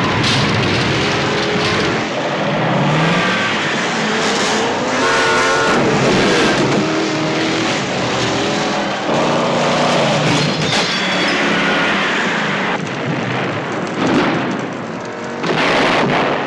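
Car stunt chase soundtrack: engines revving up and down, tyres squealing and skidding, with explosions and crashes mixed in.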